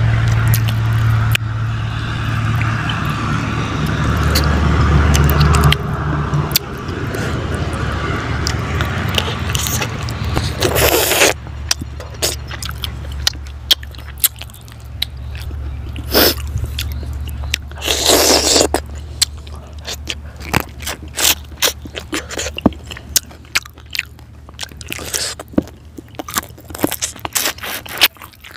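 Close-up eating sounds of a man working through a fried fish head by hand: wet mouth clicks, smacks and crunches of bone, with two longer sucking slurps about eleven and eighteen seconds in. A steady low hum underlies the first ten seconds or so.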